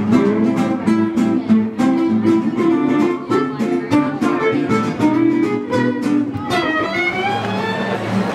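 Acoustic guitar and violin music: a steady run of plucked guitar notes, with an upward sliding line near the end.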